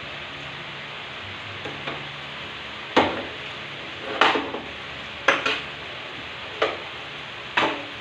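Food sizzling in a frying pan, with a utensil stirring it and scraping and knocking against the pan in a string of sharp strokes from about three seconds in.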